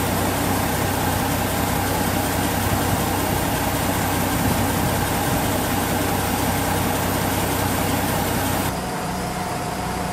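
NE 81 diesel railcar idling at a standstill, a steady engine hum. About nine seconds in the sound drops a little in level and its tone changes.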